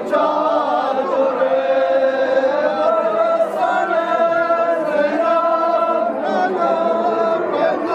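Crowd of men chanting a noha, a Shia mourning lament, together in unison, with long held, wavering notes.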